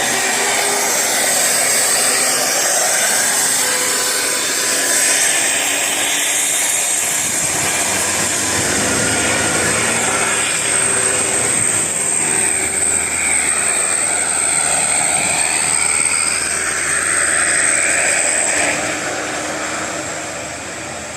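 A large bus driving past at close range: a steady engine-and-tyre rush with slow swishing sweeps as it goes by, dying away near the end. No horn sounds.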